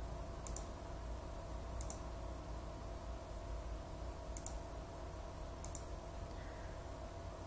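Computer mouse button clicked four times, a second or more apart, each a quick press-and-release, over a faint steady low hum.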